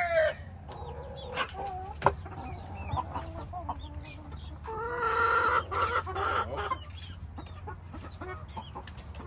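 Backyard chickens clucking and calling, with the fading end of a rooster's crow at the very start and a louder drawn-out call about five seconds in. A single sharp click about two seconds in.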